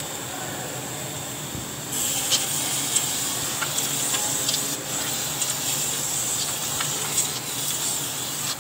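Aerosol spray can hissing through its straw nozzle as it sprays onto a drum-brake backing plate and hub. The spray starts about two seconds in and runs on in a steady hiss with brief dips, with a few light clicks, then stops near the end.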